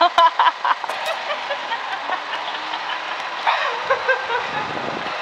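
Laughter in the first second, then steady outdoor background noise with faint low humming and a few light clicks.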